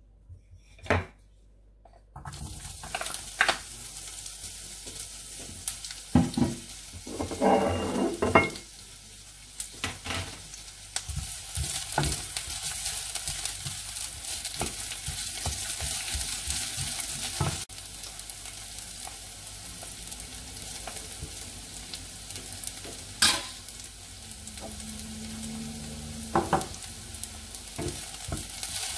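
Garlic and sliced onion frying in oil in a nonstick wok: a steady sizzle that starts suddenly about two seconds in as the garlic hits the hot oil, with a wooden spatula stirring and knocking against the pan throughout.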